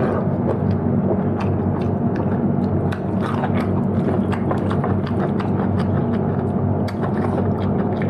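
Close-mic chewing and biting of cooked chicken: many short, sharp, wet clicks of teeth and mouth, over a steady low hum.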